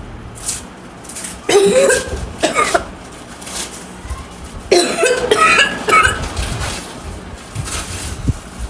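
A woman coughing on purpose for a cough challenge, forced coughs in two bouts, one about a second and a half in and a longer one about five seconds in.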